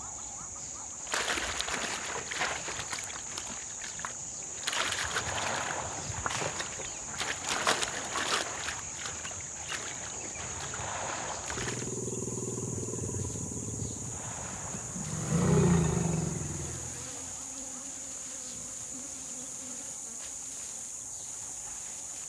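A large wild animal gives low, deep calls about 12 seconds in, the loudest a short call about 16 seconds in. Before that come scuffling, rustling noises of movement. A steady high insect buzz runs underneath throughout.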